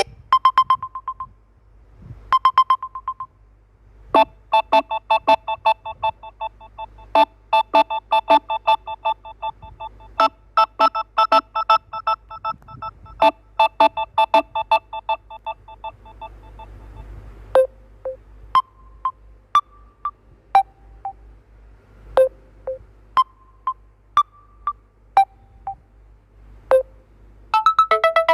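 Samsung Galaxy M31 ringtones playing: melodies of short, clipped electronic chime notes, first a quick repeating run, then sparser single notes at changing pitches, with a new, fuller ringtone starting near the end.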